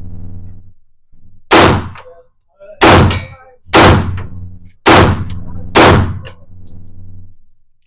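Handgun firing five shots, roughly one a second, each followed by a short echo off the walls of an indoor range. A low steady hum runs between the shots.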